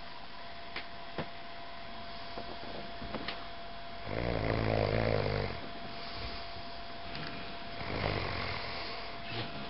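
A sleeping person snoring: one loud, buzzing snore about four seconds in, lasting about a second and a half, and a fainter one about eight seconds in. A faint steady hum runs underneath.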